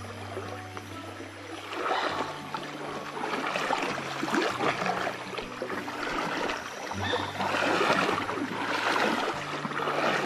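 Feet wading through a shallow, sandy stream, water splashing and swishing in uneven surges with each stride from about two seconds in.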